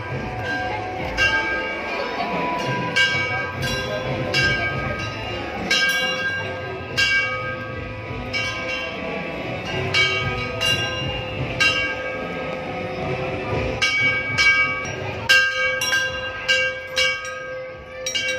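Temple bells struck over and over at irregular intervals, roughly once a second, each strike ringing on so that the tones overlap.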